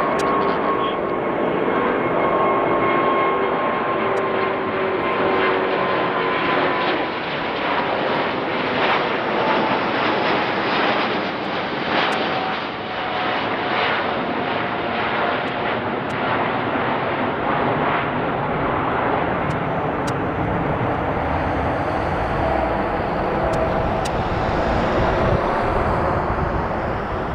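Airbus A350's Rolls-Royce Trent XWB turbofans at take-off power as the airliner climbs out overhead: a loud, steady jet roar with a whine that falls slowly in pitch, crackling most in the middle, and a deeper rumble building toward the end as it moves away.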